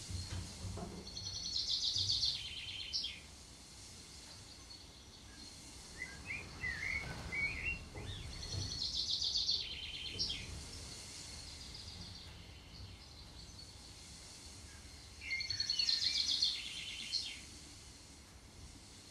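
A bird singing a short, high, trilling phrase three times, about every seven seconds, with softer chirps in between, over a faint steady hiss.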